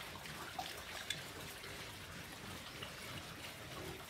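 Several pigs eating chopped green vegetables off a wet concrete floor: steady wet chewing and munching, with a few faint clicks.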